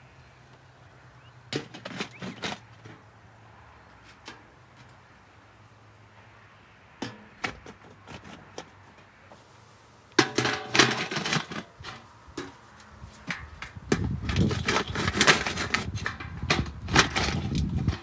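Galvanised steel buckets being set down upside down on a bed of gravel stones. Scattered clinks and knocks come first; from about ten seconds in there is a dense run of gravel crunching and metal scraping as the buckets are pressed down into the stones.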